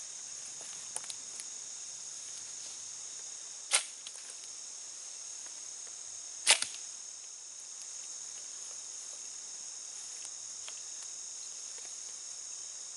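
Two sharp snaps about three seconds apart as a homemade Hawaiian sling's slingshot bands are released, launching a dart, over a steady high chorus of crickets.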